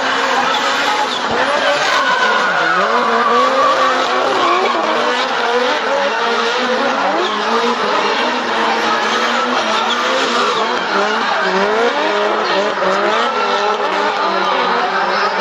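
Two drift cars sliding in tandem, their engines revving up and down continually over sustained tyre squeal.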